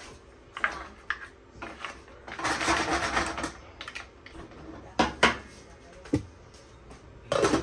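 Handling noises: a series of sharp clicks and knocks, with a rustling stretch about two and a half seconds in and a louder knock near the end.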